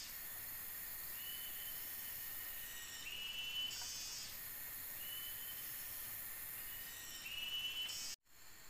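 Forest insects keep up a steady high-pitched chorus. A call repeats about every two seconds, rising in steps. The sound cuts out for an instant near the end.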